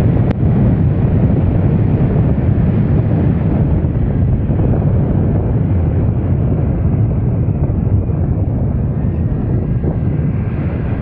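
Steady wind rumble on the microphone of a moving motorbike, with engine and road noise blended underneath.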